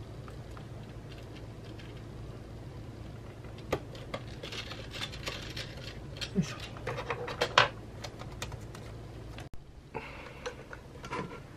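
Scattered small clicks, taps and short rattles of hands and a screwdriver working on the internal parts of a mid-2011 Mac mini during reassembly, heard over a low steady hum. The sound breaks off sharply about 9.5 seconds in.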